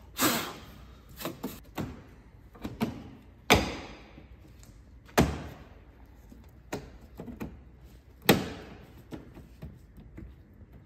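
Sharp knocks and lighter taps of a carbon-fibre grille being pushed and seated into a car's front bumper: four loud knocks a second or more apart, each with a short fading ring, among quieter clicks.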